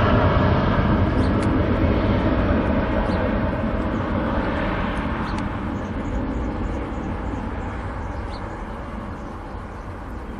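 Airbus A330 twin jet engines at high thrust as the airliner starts its takeoff roll, a steady roar that gradually fades as it moves away down the runway.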